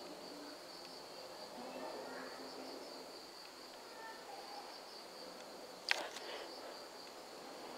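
Insects trilling steadily at a high pitch, with a faint pulsing, as background chorus; one sharp click about six seconds in.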